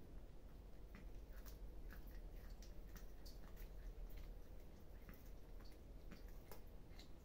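Several cats eating, faint irregular wet chewing and smacking clicks, over a low steady hum.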